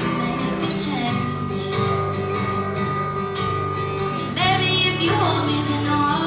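Live female singer accompanying herself on acoustic guitar, singing held, wavering notes over steady strummed chords.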